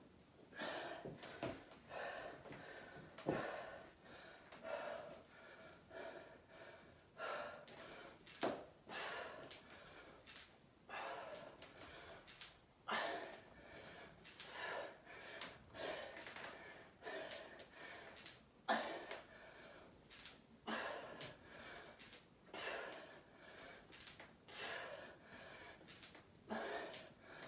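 A woman breathing hard through repeated dumbbell squats: sharp gasps and forceful exhales, one every second or two, in time with the reps.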